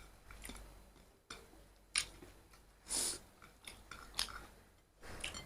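A person chewing a mouthful of rice with kinima and pork close to the microphone, with irregular wet mouth clicks and smacks.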